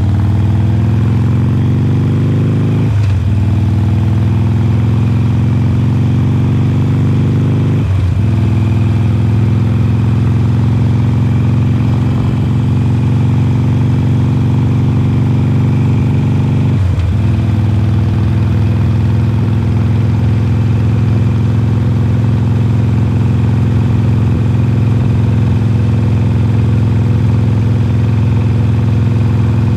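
2020 Harley-Davidson Forty-Eight's 1200 cc air-cooled V-twin running loud through Khrome Werks slip-on mufflers while riding. The engine note climbs, dipping briefly as the rider shifts up about 3, 8 and 17 seconds in, then holds steady at a cruise.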